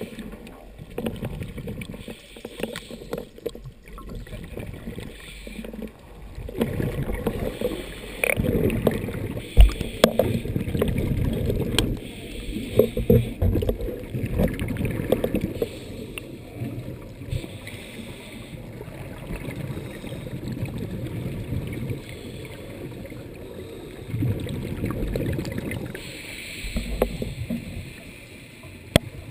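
Underwater bubbling and rumbling from scuba divers' exhaled air, muffled as heard under water. It comes in louder gurgling stretches, one about a third of the way in and another near the end, with quieter water noise and a few small clicks between.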